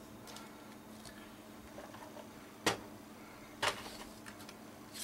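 Paper and craft tools handled on a work table: light rustling, with two sharp knocks about a second apart near the middle as things are set down, over a faint steady hum.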